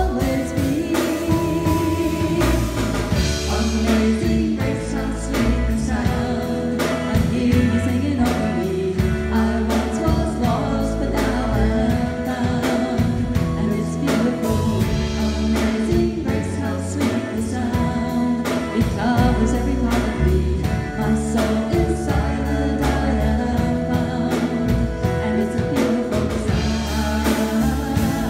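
Live contemporary worship band playing and singing: lead vocals over electric guitar, drum kit and keyboard, with a steady beat.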